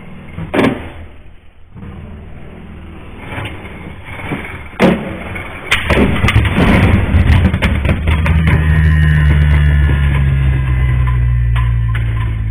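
Beyblade Burst tops clashing in a plastic stadium and bursting apart: two sharp clicks, then a dense clatter of impacts from about six seconds in, settling into a deep steady drone. It sounds creepy.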